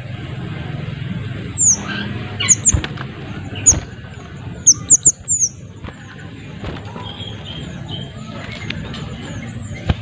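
Small minivet (sepah kecil) calling: a run of short, thin, high notes that each slide downward, given in quick clusters, loudest in the first half, then fainter notes repeating.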